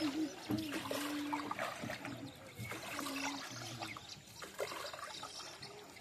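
Water trickling and splashing around a small rowboat on the river.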